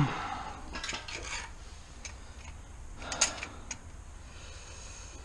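Light metallic clinks and rattles of metal parts being handled, in a few short clusters, the loudest about three seconds in.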